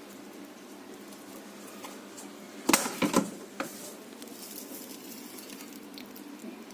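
A quick cluster of sharp clicks and knocks about three seconds in, with one more just after, as a freezer part held by fixing locks is handled. Under it runs a steady low hum.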